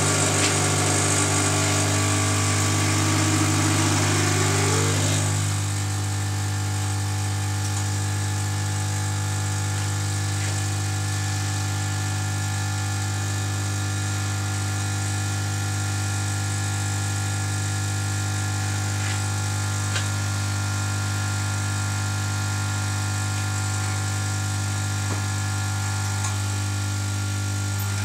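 Vibratory pump of a Rocket Cellini Premium espresso machine running through an espresso shot, a strong steady hum. For the first five seconds it is louder, with a whine rising in pitch, then it settles to a lower, even hum while the coffee flows, and it stops right at the end.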